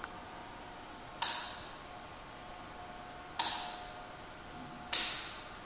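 Wall light switches clicked three times, lighting the ceiling fixtures, chandelier and hidden LED backlight one after another; each sharp click fades over about half a second in the bare room.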